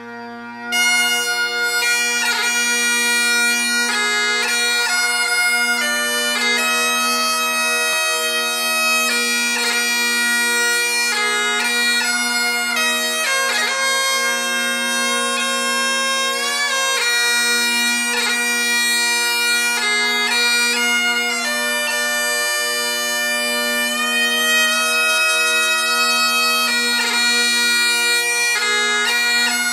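Great Highland bagpipes playing a practice exercise, the slide exercise, over steady drones; the chanter melody comes in about a second in and moves through quick, clipped note changes.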